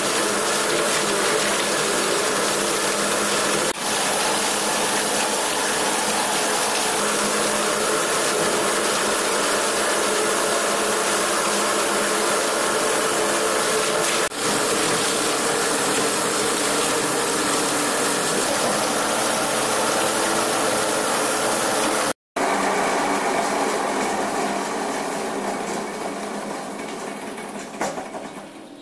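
Belt-driven plastic scrap crusher (granulator) grinding plastic pieces into flakes: a loud, dense, steady mechanical rattle and grind. It breaks off for an instant about three-quarters of the way through, then fades over the last few seconds.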